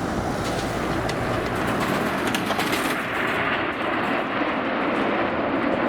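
Jet noise from a formation of BAE Hawk T1 trainers of the Red Arrows flying over. It is a steady, loud rushing noise that builds slightly, and its high hiss eases about three seconds in.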